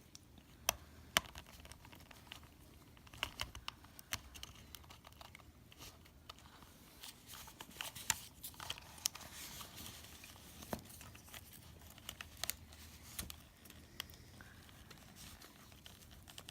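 Scattered sharp clicks, taps and rustling as plastic headset parts are handled and pressed into place, with a light rustle between about eight and ten seconds in.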